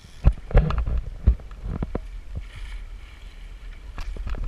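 Lake trout being netted at the side of the boat: water splashing and sloshing, with a few sharp splashes in the first second and a half, then softer water noise.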